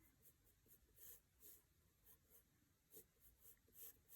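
Faint scratching of a pencil on paper, drawn in short separate strokes a few times a second.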